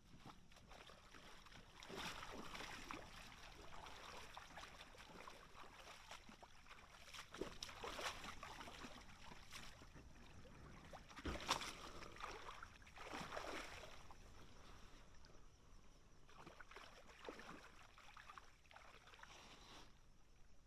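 Faint water splashing and swishing in a shallow creek, in irregular strokes a second or more apart, from a paddle or feet moving through the water around an inflatable paddle board. One sharper splash comes a little past the middle.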